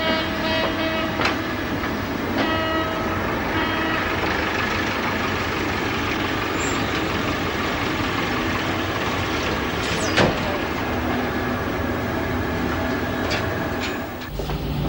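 Steady, loud running noise of a warship's machinery, with a few sharp metallic clanks and some short pitched tones near the start.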